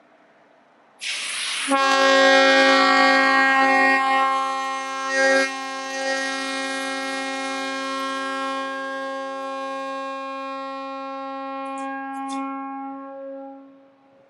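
Nathan P-5 locomotive air horn blowing one long chord of about twelve seconds, opening with a short rush of air hiss and gradually weakening before it dies out near the end. Only a couple of its five chimes seem to sound, leaving the chord thin and weak.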